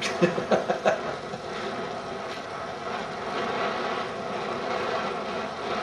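Cobra oxy-fuel welding torch flame hissing steadily as it heats and puddles steel. A few short, louder sounds come in the first second.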